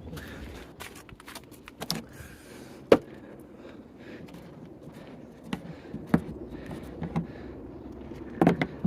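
Scattered metallic clinks and knocks of hand tools and jack gear being handled, with one sharp knock about three seconds in.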